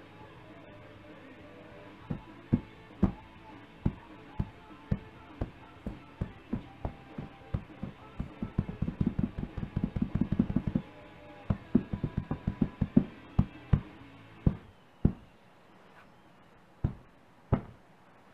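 Fursuit paws patting and slapping an air-inflated belly: single pats about twice a second, a quick drumming run of rapid pats through the middle, then slower pats that thin out near the end.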